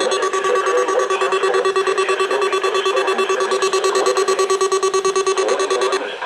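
Weather radio receiver's alarm going off for the weekly test: a loud, rapidly pulsing buzzer tone, about five or six pulses a second, that cuts off suddenly just before the end.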